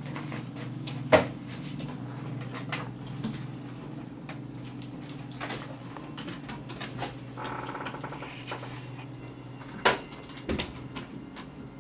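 Steady low hum of office equipment, with a few sharp knocks on a wooden desk, the loudest about a second in and near the end, and soft rustling of papers in between.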